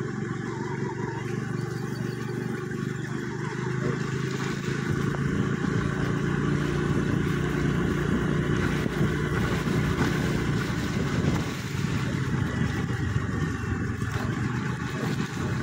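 Vehicle engine running steadily while driving, with a constant rush of wind and tyre noise on a wet road. It gets somewhat louder a few seconds in and dips briefly about eleven seconds in.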